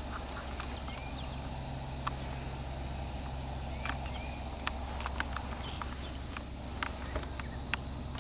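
Paint pony walking on grass under a rider, giving scattered light, irregular clicks and knocks from hooves and tack, over a steady high drone of insects.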